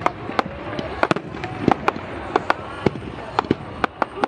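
Fireworks display: a rapid, irregular string of about a dozen sharp bangs and cracks from exploding aerial shells, one close on another.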